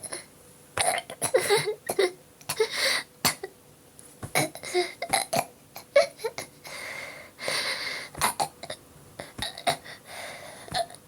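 A young woman burping several times, short deep belches brought up by carbonated water she has drunk, amid many sharp knocks from her belly being tapped.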